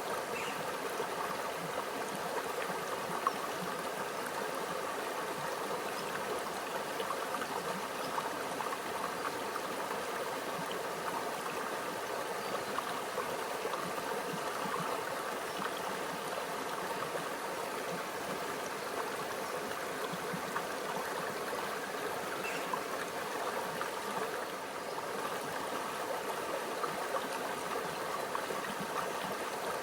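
Small stream flowing and gurgling over rocks, a steady babble of water.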